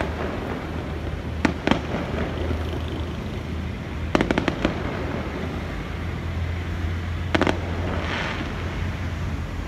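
Aerial fireworks bursting in the sky: two sharp bangs about a second and a half in, a rapid cluster of cracks about four seconds in, and another burst past seven seconds in, over a steady low rumble.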